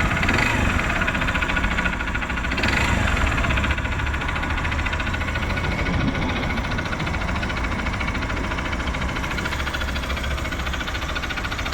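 Honda Bros 150 single-cylinder four-stroke engine running at idle with a strange knocking noise, a fast even beat with a couple of brief swells. The engine is not losing oil.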